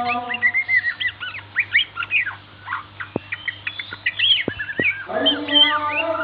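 White-rumped shama song: a fast, varied run of chirps and whistled notes, rising and falling, with a few sharp clicks. A lower held tone comes in about five seconds in, over a faint steady hum.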